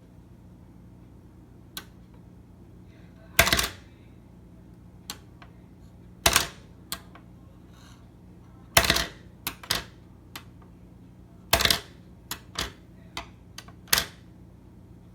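Irregular sharp clicks and clacks of hard tool parts being handled, over a dozen, some in quick pairs, with a faint steady hum beneath.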